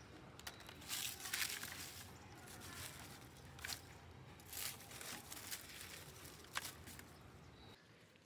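Dry leaves and twigs rustling and crackling as a gloved hand crumples them and presses them down into a plastic bucket, in several separate bursts, the loudest about a second in.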